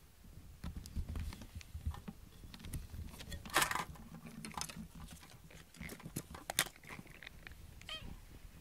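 Hands rummaging through a pile of cat harnesses, cords and toys: rustling, clicks and light clatter, with one louder scrape about three and a half seconds in.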